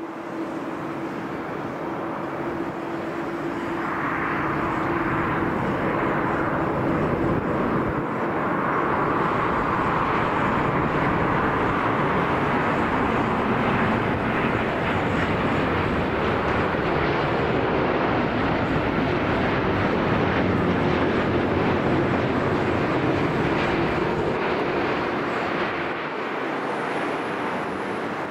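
Jet airliner coming in to land, its engine noise building over the first several seconds with a steady hum, staying loud, then easing slightly near the end.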